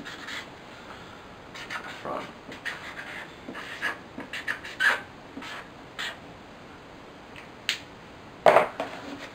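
Felt-tip marker pen squeaking and scratching on a cardboard box in short, irregular strokes as letters are written. A click near the end, then one louder short sound as the pen is put down.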